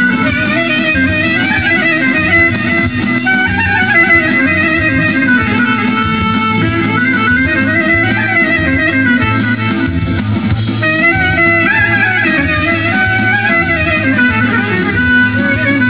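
Greek bouzouki band playing live dance music: an instrumental passage with a lead melody over a steady beat.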